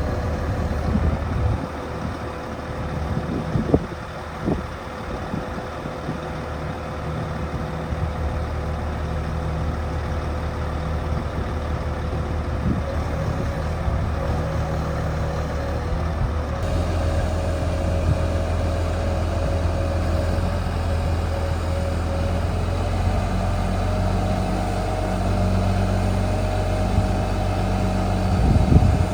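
Diesel engine of a 2005 Daewoo concrete pump truck running steadily, with a couple of sharp knocks about four seconds in. Just past halfway the engine note changes abruptly and runs on a little deeper and fuller.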